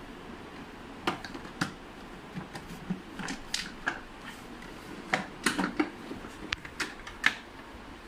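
Hard plastic clicks and knocks from a canister vacuum cleaner's housing as it is turned over and its top cover is lifted off. There are a dozen or so sharp clicks, most of them bunched about five to six seconds in.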